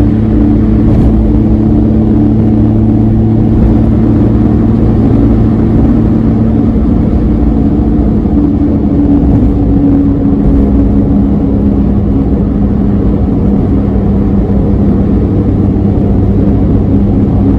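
Suzuki Alto Van (HA36V) kei van's 660 cc three-cylinder engine droning steadily at expressway cruising speed, mixed with tyre and road noise, heard from inside the cabin.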